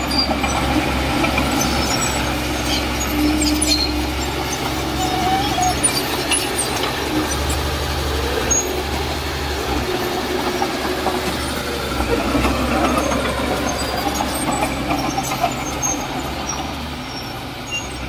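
Heavy diesel construction machine running, its engine rumble swelling and easing, with scattered metallic clanks and rattles.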